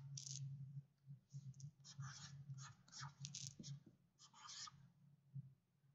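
Dry-erase marker writing on a small whiteboard: faint, short scratchy strokes in little groups with pauses, a couple of sharper squeaks in the middle, over a low steady hum.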